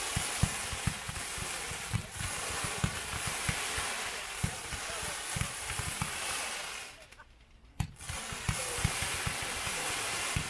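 Hot Fireworks 'Fiesta Party' 67-shot firework cake firing in rapid succession: a steady hiss of rising comet tails over many dull launch thumps. It breaks off for about a second some seven seconds in, then fires again.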